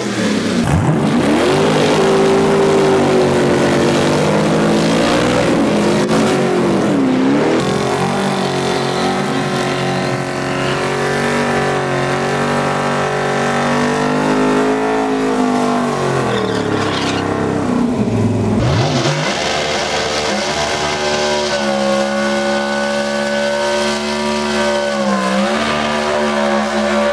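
Drag cars' engines held at high revs during burnouts, with the rear tyres spinning in smoke. The engine pitch holds steady, dips briefly and climbs again a few times as the throttle is worked, dropping deepest about two-thirds through. After that another car's engine takes over with a burst of hiss.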